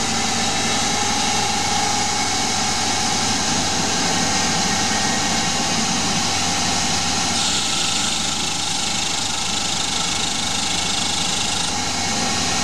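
Small Hercus CNC lathe running, its half-horsepower DC spindle motor turning a large aluminium blank with a steady whine and hum as the turret brings the boring bar into the bore. A brighter hiss joins about seven seconds in.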